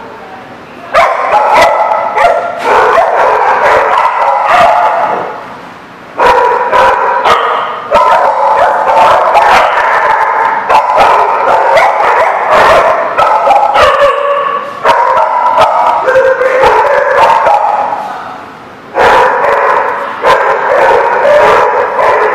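Several dogs barking and yipping over one another almost without a break, with a few short lulls.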